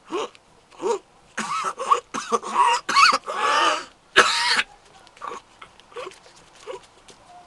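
A man blowing through a folded piece of paper pressed to his lips, making a string of buzzing, squealing bursts with a wavering pitch. The loudest run of them ends about four and a half seconds in, leaving only faint short sounds.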